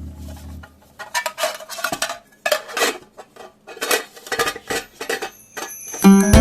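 Small metal camp cookware being handled, with a string of irregular clinks, knocks and rattles.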